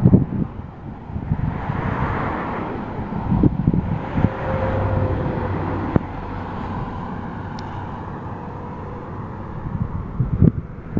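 Outdoor vehicle and traffic noise: a steady rush with a faint hum that swells and fades in the middle, and a few sharp knocks.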